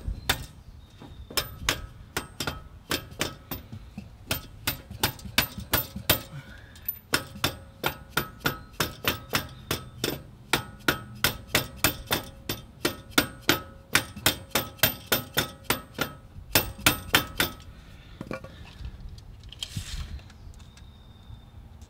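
Rapid series of mallet blows on the steel clamp of a truck's dual steering stabilizer, about three a second, each with a short metallic ring, tapping the stabilizer over a hair to set its eyelet spacing. The blows stop a few seconds before the end.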